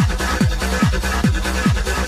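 Electronic dance music, trance or techno, with a deep kick drum on every beat at a little over two beats a second over a steady bass line.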